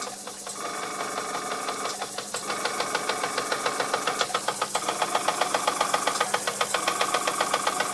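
Bing toy steam engine's single cylinder running fast, a rapid, even train of exhaust chuffs that settles into about seven beats a second and grows louder from a couple of seconds in.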